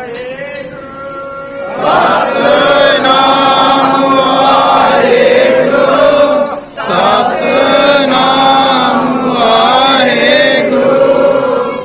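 A Sikh congregation of men's voices chanting together in unison. The chant grows loud about two seconds in and goes on in long phrases, with one short break just past the middle.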